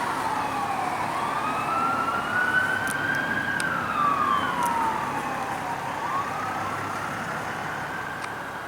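Fire department vehicle's siren sounding a slow wail, its pitch falling, rising over a few seconds and falling again. It grows gradually quieter.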